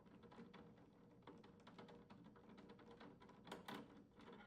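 Faint, quick clicking and ticking of a nutdriver backing out the hex head screws that hold the rear bracket on a trash compactor's container drawer, with a few louder clicks about three and a half seconds in.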